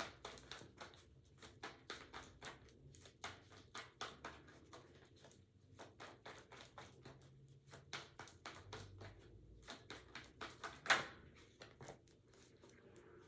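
Tarot cards being shuffled and drawn: faint, irregular soft clicks and taps several times a second, with one louder snap about eleven seconds in.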